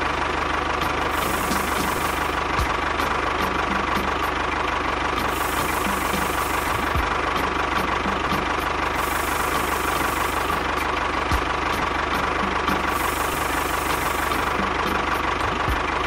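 A tractor engine running steadily at idle with a regular knocking beat, even and unchanging throughout.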